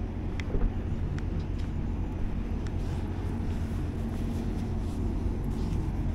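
Idling engine: a steady low hum, with a few faint short clicks on top.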